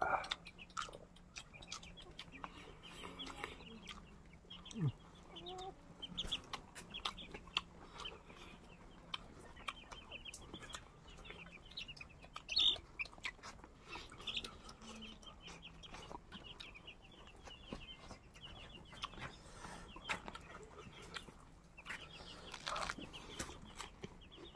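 Chickens clucking, with rapid chirping and scattered sharp clicks throughout.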